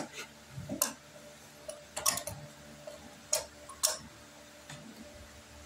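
A handful of short, sharp clicks and taps at irregular intervals as a pneumatic nail punch is handled and its tip is set against a nail in a wooden board.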